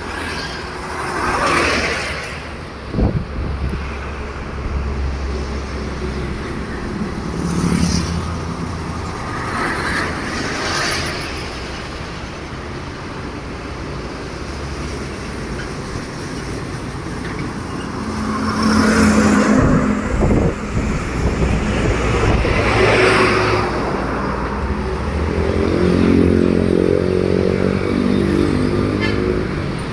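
Roadside traffic: trucks and other vehicles passing one after another, with a steady low engine rumble and a rushing swell as each goes by, about five times. A held pitched note sounds around the middle and again near the end.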